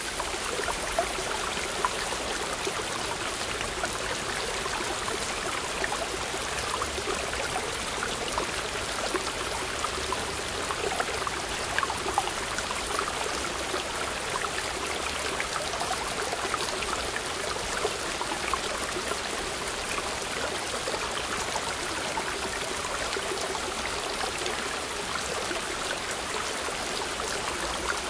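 Small waterfall pouring between boulders into a rock pool: a steady rush of falling water with small sharp splashes.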